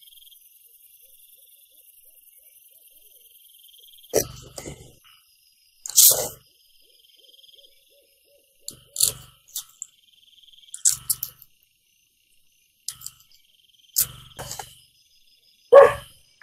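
Crickets chirring steadily in pulsed high tones, broken from about four seconds in by roughly nine irregular short, sharp sounds, the loudest near the end.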